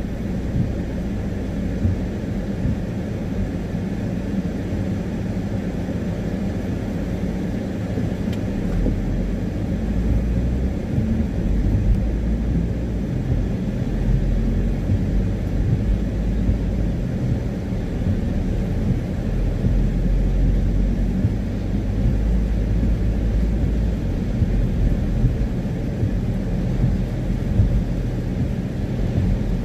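Car driving on a wet road, heard from inside the cabin: a steady low rumble of engine and tyres on wet tarmac.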